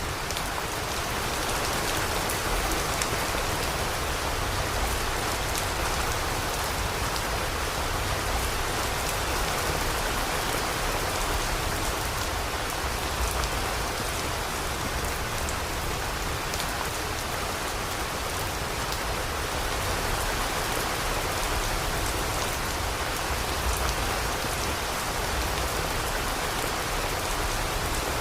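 Steady rain falling, a constant hiss flecked with many small drop ticks.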